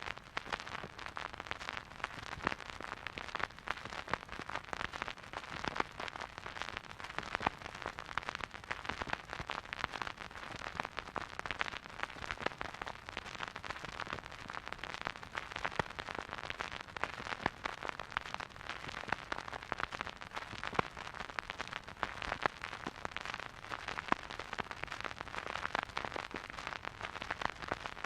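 Vinyl record surface noise from a silent groove: constant dense crackling and popping over a soft hiss, with no music.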